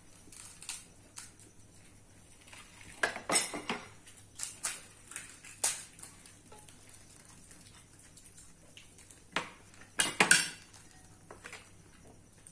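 Spoons clinking and scraping against bowls and plates while crisp golgappa puris are cracked open and filled, in scattered short clatters. The loudest clusters come about three seconds in and again about ten seconds in.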